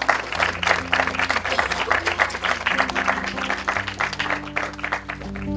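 Guests applauding with fast, dense clapping over background music with held low notes; the clapping dies away near the end.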